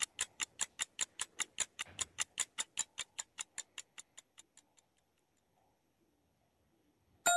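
Clock-ticking sound effect for a quiz countdown timer, fast and even at about five ticks a second, fading away about four and a half seconds in. A chime starts just at the end.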